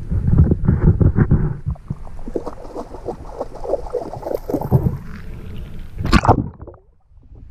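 Water splashing and sloshing right at the camera at the surface of shallow water, in quick uneven strokes, with one sharp loud splash a little after six seconds; the sound then drops away almost to nothing.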